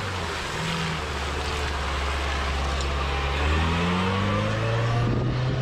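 Off-road 4x4's engine working through mud. The revs drop at the start, hold low for a couple of seconds, then climb again in the second half.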